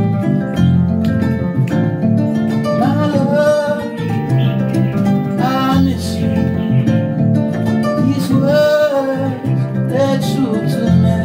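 A kora plucks a repeating melody over deep electric bass notes. A man's voice sings two drawn-out, wavering phrases without clear words, about three seconds in and again near nine seconds.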